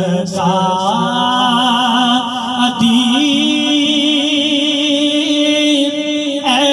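A solo male voice singing long, drawn-out notes with vibrato through a microphone and PA, in the manner of an Urdu naat recitation. The held note steps up in pitch about three seconds in and is sustained until near the end.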